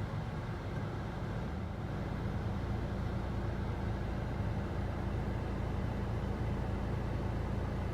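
Steady low rumble of a running Mitsubishi Delica D5, heard inside the cabin.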